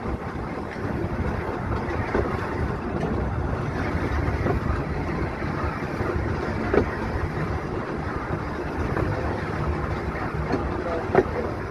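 Volk's Electric Railway car running along the track: a steady rumble of wheels on rail, with a few short sharp clicks.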